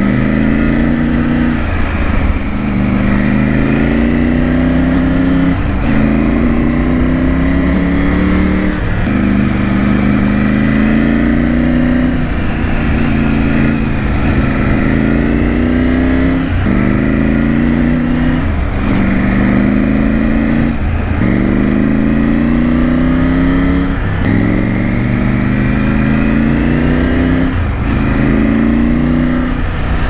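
Triumph Tiger 900's three-cylinder engine through a Scorpion aftermarket exhaust while riding: the engine note rises under throttle, then drops back sharply, over and over about every two and a half seconds.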